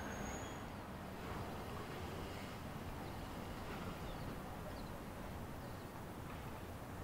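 Steady outdoor street ambience: a low, even background of distant traffic, with a few faint short chirps scattered through it.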